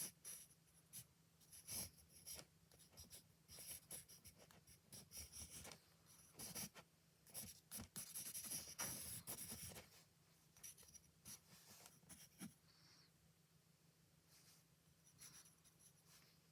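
Faint scratching of a drawing tool on paper in quick, irregular strokes, densest in the middle and thinning to a few strokes near the end.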